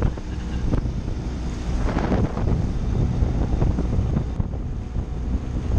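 Inflatable dinghy's outboard motor running at speed, with wind buffeting the microphone and water rushing and splashing along the hull, a bigger splash of spray about two seconds in.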